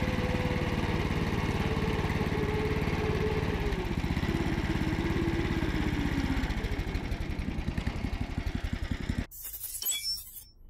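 The 20-horsepower engine of an IKUDZO motorized snow towing machine (motor-dog) running under way while it tracks across snow pulling a sled, its pitch slowly dropping over several seconds. The engine sound cuts off abruptly about nine seconds in.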